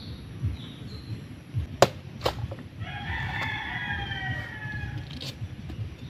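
A rooster crowing once, one long call starting about three seconds in. Just before it, two sharp knocks half a second apart, the louder first, from a machete chopping into a young coconut.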